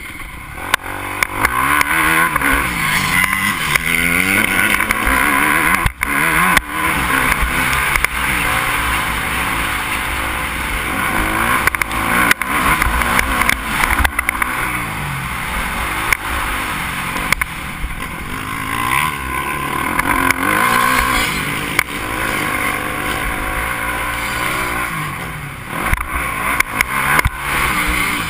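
Yamaha motocross bike's engine revving hard and then dropping back, again and again, as the rider accelerates and shifts around the track, heard from a helmet-mounted camera. Occasional sharp knocks cut through the engine.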